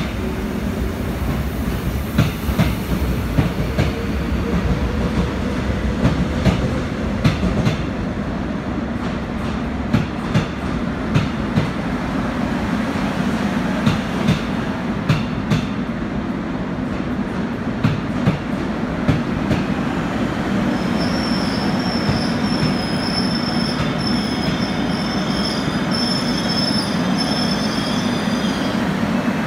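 Korail 321000-series electric multiple unit pulling into a station and slowing. The wheels clack over rail joints, the clacks growing sparser as it slows, over a steady low rumble. From about two-thirds of the way in, a high thin brake squeal sets in as the train comes to a stop.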